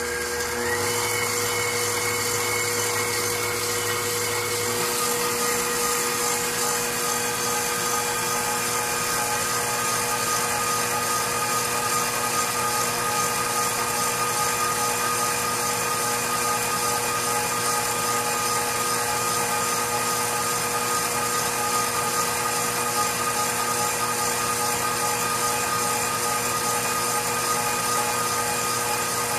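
KitchenAid stand mixer's motor running steadily with a whine, driving the pasta extruder attachment as it presses out spaghetti. The pitch rises briefly in the first second, then holds steady.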